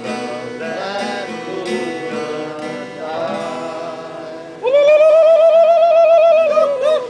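Acoustic guitar played with singing. A bit over halfway through, one loud note is held with a wavering vibrato for about two seconds, then drops away near the end.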